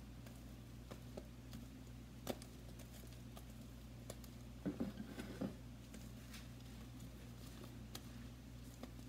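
Homemade fluffy slime (glue and shaving cream) being kneaded and pulled by hand, giving faint, scattered sticky clicks and squelches, busiest about five seconds in.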